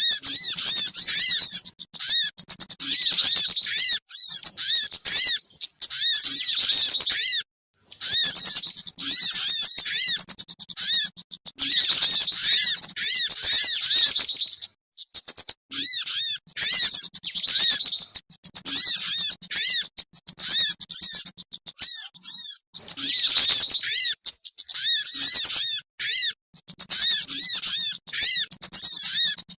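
Bird-lure recording of small songbirds chattering excitedly in a busy mix of fast, high-pitched chirps and trills. The chatter comes in runs of a few seconds with short breaks between them.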